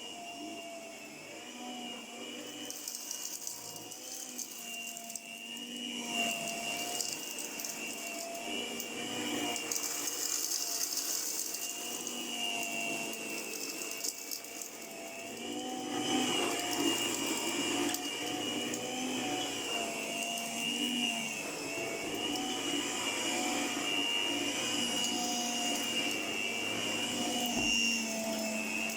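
1978 Princess electric carpet sweeper running, its 100-watt motor spinning the brush bar: a steady, slightly wavering motor whine with a loud racket, growing louder about six seconds in and again about sixteen seconds in.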